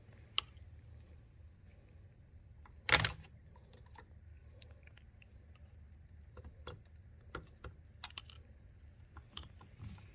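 Light, scattered clicks and taps of hand tools working small plastic and metal parts on an intake manifold, with one louder clatter about three seconds in and a run of sharper clicks near the end.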